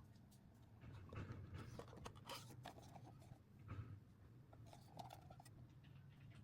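Faint rustling and light, irregular clicks of packaging being handled and opened, over a low steady hum.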